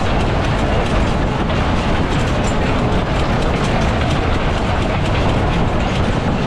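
Funfair ski jump ride car running at speed round its track: a loud, steady rumble and rattle of wheels on the rails.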